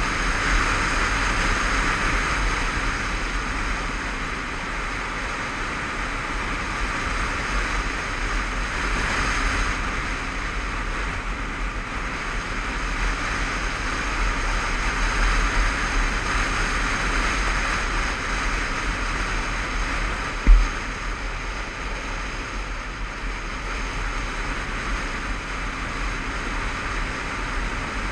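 Wind rushing over the microphone of a helmet-mounted camera on a moving motorcycle, a steady loud rush that buries the engine. A single short thump about twenty seconds in.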